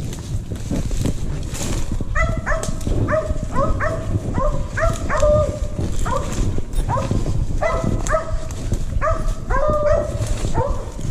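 Mountain cur hounds barking a steady run of short barks, about two a second, starting about two seconds in: the dogs barking treed on a raccoon. Footsteps and brush rustling run underneath.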